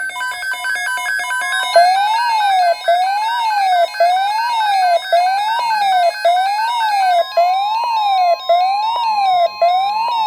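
Electronic emergency alert tone: a loud tone sweeping up and down like a siren about once a second, with brief gaps, over rapid stepped electronic beeps that change to a steady tone about seven seconds in.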